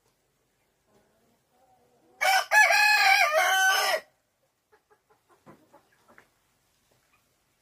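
A rooster crows once, about two seconds in: a loud call lasting nearly two seconds. Soft hen clucking comes before it, and a few faint taps follow.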